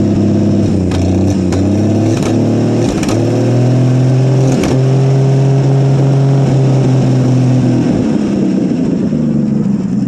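1959 Ford F250's six-cylinder engine running on a cold start after sitting for years. It is revved up about three seconds in, held at a higher speed, then let back down to idle about eight seconds in.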